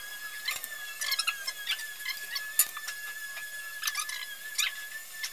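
Clicks and scrapes of a steel fish tape being handled and worked through PVC conduit, over a steady high-pitched whine.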